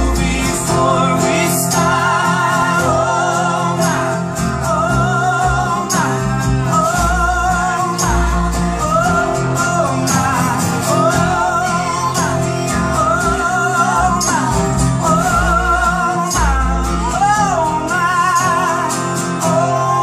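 Acoustic folk band playing live: men's and women's voices singing together around one microphone over strummed acoustic guitars and an upright bass.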